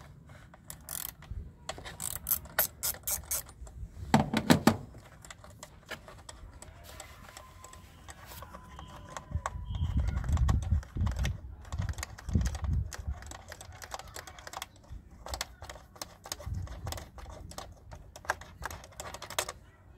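Small socket ratchet clicking in quick runs as the 10 mm screw holding the air filter box is undone, mixed with dull knocks and handling noises from hands working in the engine bay.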